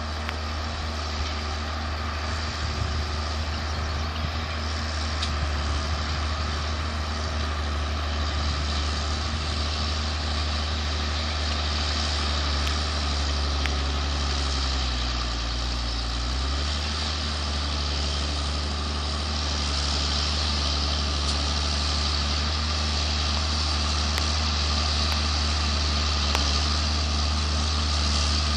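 A motor running steadily with a low, even drone. Its pitch sags briefly about halfway through, then recovers.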